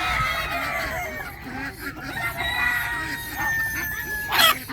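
A pen full of chickens and roosters clucking and calling over one another. There is one long call that falls slowly in pitch past the middle, and a short loud burst near the end.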